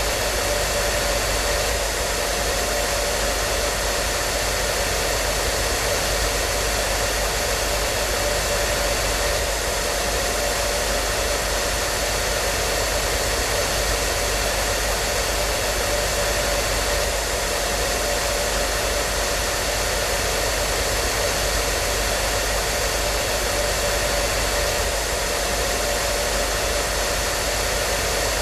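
Hair dryer running steadily: an even, unchanging rush of blown air with a faint steady motor whine on top.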